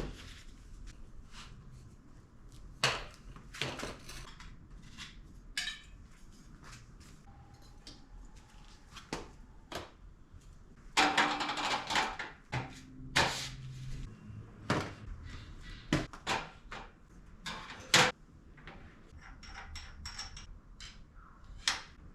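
Intermittent knocks and light clatter of objects being handled and set down, with a busier burst of clatter about halfway through.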